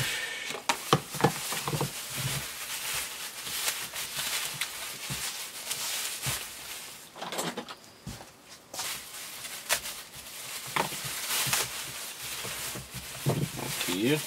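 Plastic bags rustling and crinkling as toys are unwrapped from them by hand, with a few short knocks in between.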